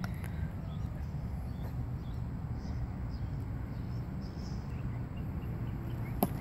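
Open-air ambience: a steady low rumble with faint, scattered bird chirps, and one sharp click near the end.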